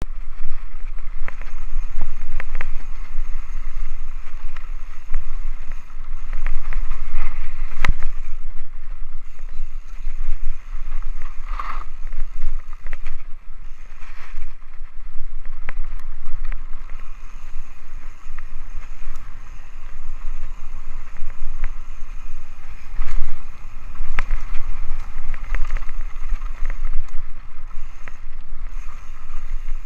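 Rocky Mountain Altitude mountain bike riding fast down a dirt singletrack: wind buffeting the microphone over the steady rumble of the tyres, with frequent sharp knocks and rattles from the bike as it hits bumps.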